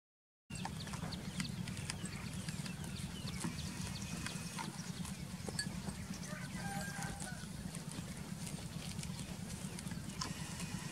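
A goat cropping grass close up: many short sharp tearing and chewing clicks over a steady low rumble, with a few brief high chirps about two-thirds of the way through.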